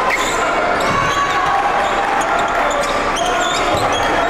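A basketball being dribbled on a hardwood court, with short high sneaker squeaks, over the steady chatter of a crowd.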